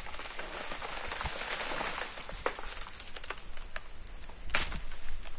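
Dry banana leaves and stalk sheaths rustling and crackling, with scattered small cracks and one sharp loud crack about four and a half seconds in.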